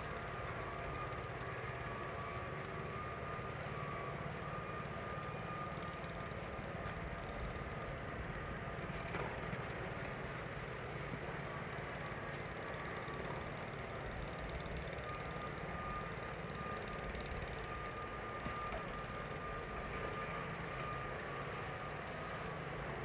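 City street ambience: a steady low traffic rumble with a thin, steady whine that drops out in the middle and comes back in the second half.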